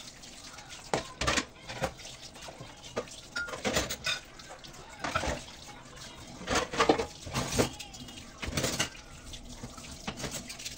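Dishes being washed by hand at a kitchen sink: tap water running, with irregular clinks and knocks of dishes and utensils.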